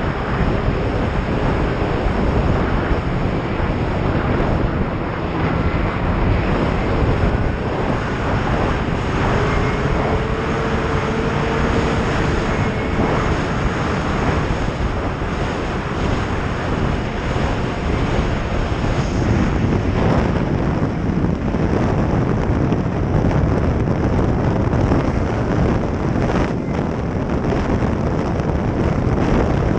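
Snowmobile running at speed, engine and track noise under heavy wind buffeting on the microphone, with a faint whine that rises a little about ten seconds in.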